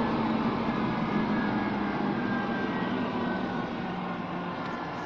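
Beaver 620 four-sided planer-moulder running, its cutter heads spinning with a steady rushing noise and a few steady whining tones, getting slowly a little quieter.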